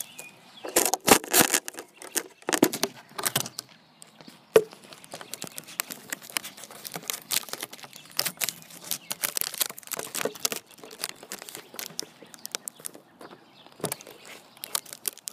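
Close rustling and crinkling with scattered knocks right at the microphone, loudest in the first few seconds and with one sharp knock a little past four seconds.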